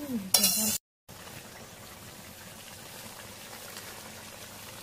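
Chicken kosha simmering in a steel wok over a wood fire: a faint, steady bubbling hiss. It comes after a brief voice and a short dropout to silence just under a second in.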